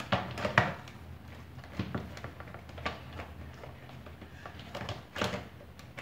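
Scattered light clicks and knocks of a Philco blender's plastic base and motor being handled and fitted back together, the loudest a little before the end.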